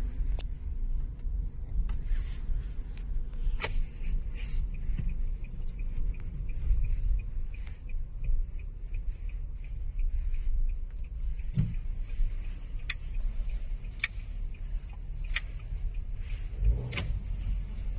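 Low road and engine rumble heard inside a moving car's cabin, with scattered clicks and rubbing from the phone being handled and knocked about.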